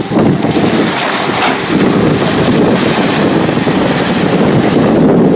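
Amphibious bus driving down a ramp into the water and ploughing through it: a steady rush of splashing water mixed with wind buffeting the microphone, the hiss of spray brightening about two seconds in.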